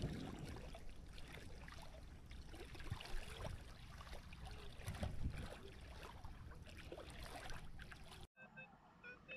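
Shallow water sloshing and splashing around bare legs as a person wades and sweeps a metal detector coil through it, in a run of small uneven splashes. The sound cuts off abruptly near the end, leaving a few short faint tones.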